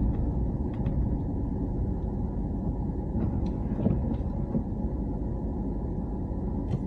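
Steady low rumble of a 2500HD pickup truck driving, engine and tyre noise heard from inside the cab, with a few faint clicks.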